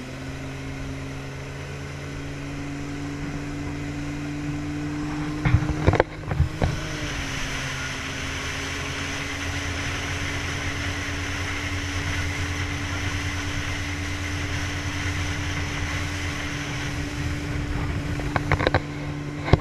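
Motorboat engine running at a steady pitch under a rush of water and wind noise, with a few sharp knocks about six seconds in and again near the end.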